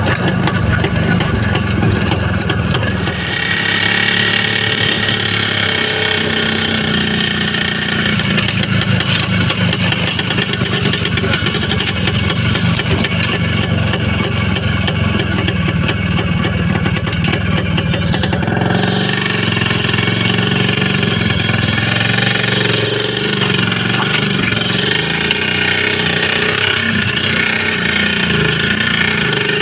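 Soviet IZh motorcycle's two-stroke engine running steadily, a dense rapid pulsing.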